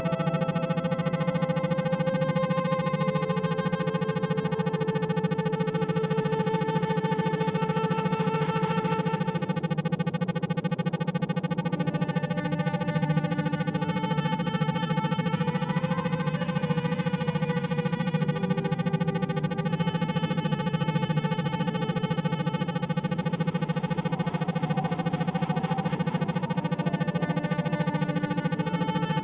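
Synthesized electronic meditation music: a steady, rapidly pulsing low drone under slow, sustained synthesizer tones that shift in pitch every few seconds.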